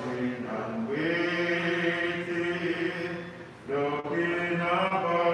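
Voices singing a slow hymn in long held notes, with a short break for breath about three and a half seconds in.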